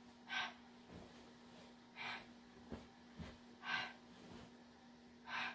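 Four short, sharp breathy exhalations about a second and a half apart, pushed out with karate techniques during a kata, with a few faint thuds of steps between them.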